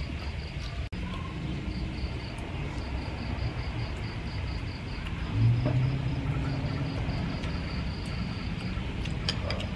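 Insects chirping in rapid, evenly spaced pulses over a steady low rumble, which swells louder briefly about halfway through.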